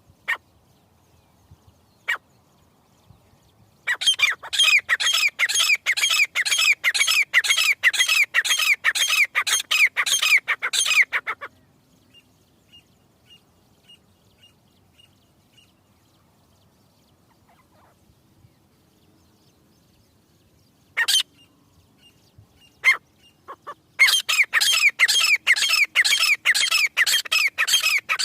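Teetar (francolin) calling: a fast run of sharp, evenly repeated notes, about three a second, from about four seconds in for some seven seconds, then again near the end, with a few single calls in between.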